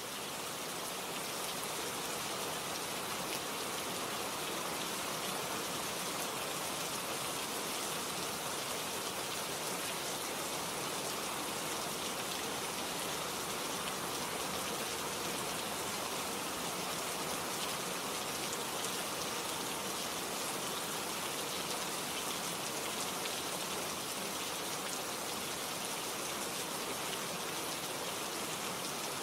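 Steady, heavy rainfall: a dense, even hiss of raindrops on surfaces, fading in over the first couple of seconds and then holding steady.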